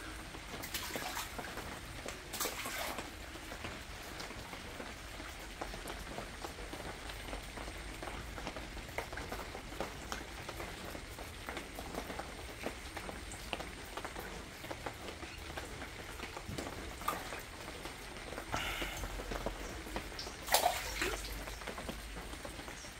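Water pattering and trickling steadily, with scattered drips and a few louder splashes, twice near the start and twice near the end.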